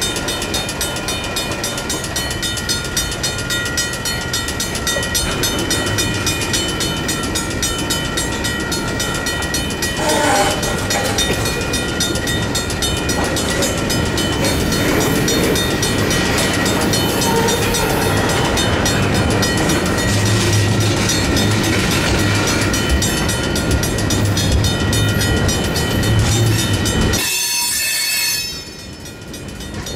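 Railroad crossing bells ringing steadily while a train of rail cars rolls through the crossing, with a low rumble swelling in the second half. The sound drops away abruptly near the end.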